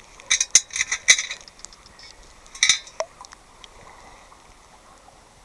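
Metallic clinks and rattles as a ring and gravel are shaken in a metal detectorist's sand scoop: a quick cluster in the first second and a half, then one more clink near the middle.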